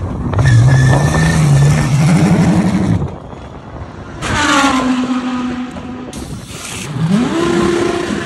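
GT3 race car engines pulling away down a pit lane. First a McLaren 720S GT3's twin-turbo V8 accelerates away, its pitch rising for about three seconds. A second car's engine then passes at a fairly steady pitch, and near the end another car pulls out, its engine rising in pitch and then holding steady.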